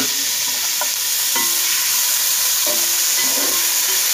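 Freshly added tomato slices sizzling in hot oil with fried onions in a pan, with a steady hiss. A perforated metal spoon stirs them, clicking and scraping against the pan a few times.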